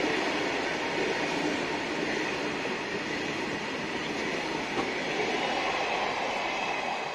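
The last wagons and the brake van of an Indian Railways freight train rolling past at speed, a steady noise of wheels on rail that begins to fade near the end as the tail of the train goes by.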